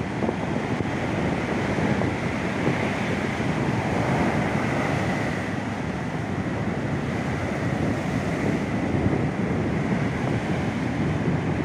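Ocean surf breaking and washing up a sand beach in a steady rush, with wind buffeting the microphone.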